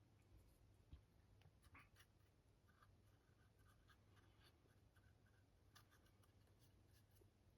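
Near silence with faint scratching and light taps of a paintbrush working paint over a model's surface; a small knock about a second in.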